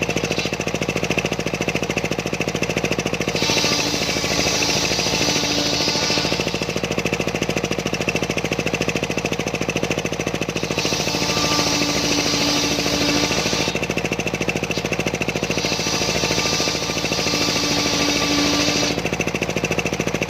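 Engine-driven homemade circular sawmill running steadily while its blade cuts through a large sengon log, the cutting noise rising over the engine three times for a few seconds each.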